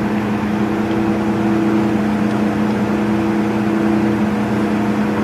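Acra Leader 17" x 55" heavy-duty engine lathe running with a steady, even hum.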